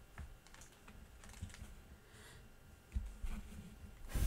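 Trading cards being handled: light clicks and taps as the cards are slid through the hands and set down on a table, with louder taps about three seconds in and again near the end.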